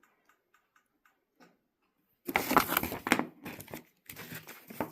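Packaging being handled and crinkled during unboxing: a few faint clicks, then two spells of rustling and crinkling, the first about two seconds in and the second near the end.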